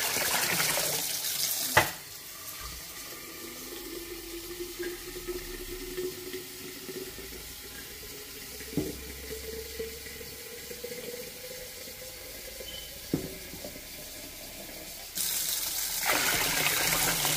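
Tap water splashing into a steel basin onto a submerged clay pot, filling the basin to soak the pot. The flow stops with a click about two seconds in, leaving a much quieter stretch with a couple of faint knocks, then starts again near the end.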